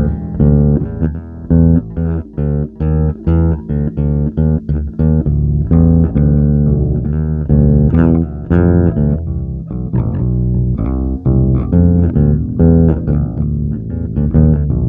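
Music: a low-pitched plucked string instrument played as a run of separate notes in short phrases, with brief gaps between them.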